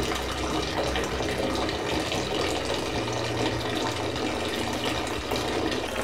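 Steady stream of hot water pouring from the spout of a tap-fed instant electric water heater while the heater is on.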